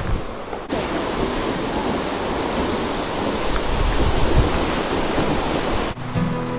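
Loud, steady rushing of a waterfall, Latourell Falls, heard close up. The roar comes in abruptly about a second in and cuts off just before the end.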